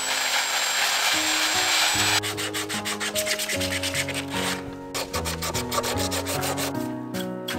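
An angle grinder sands a wooden table leg, a dense abrasive hiss with a thin high motor whine, for about two seconds. It stops abruptly and gives way to quick back-and-forth strokes of a hand-held sanding sponge rubbing old red finish off a wooden rail.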